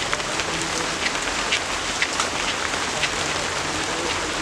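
Steady rain: an even hiss with scattered taps of drops.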